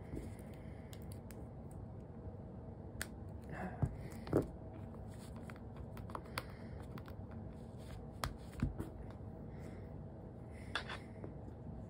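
Scattered light clicks and handling noises, with a few sharper taps around four seconds in and again after eight seconds, over a faint steady hum: small audio gear being handled while cables are hooked up.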